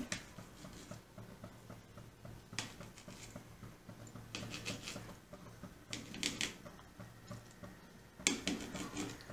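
Pizza-cutter wheel cutting soft chhena dough on a steel plate: light clicks and taps of the metal wheel on the plate, with a few short scrapes.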